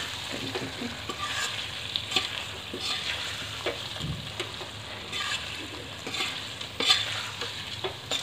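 A spoon stirring paneer and vegetables through a thick masala gravy in a metal kadai, with the gravy sizzling underneath and several sharper scrapes of the spoon against the pan.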